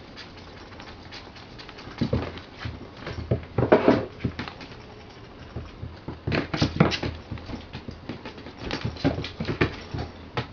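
A crinkly cat teaser toy rustling and crackling as it is swished about, with a kitten's paws pattering and scrabbling on a wooden floor as it pounces. The rustles and scrabbles come in irregular bursts, loudest about two, four, seven and nine seconds in.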